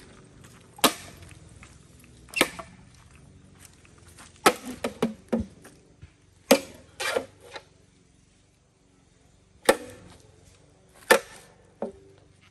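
Cutlass (machete) blows splitting green bamboo poles: a series of sharp cracking strikes a second or two apart, some coming in quick clusters.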